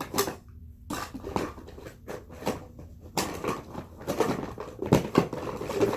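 Irregular handling noises, a quick run of taps, clicks and rustles from a bottle and bowl being handled while mixing slime ingredients.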